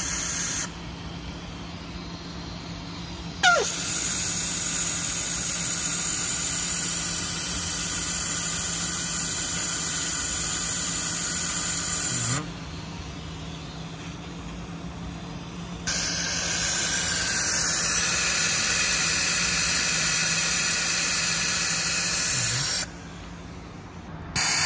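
Compressed air hissing steadily through a cylinder leak tester screwed into a spark-plug hole of the Audi S4 B9 engine during a cylinder leak check. The hiss cuts out abruptly three times and comes back, and there is a short sharp squeak a few seconds in, over a steady low hum.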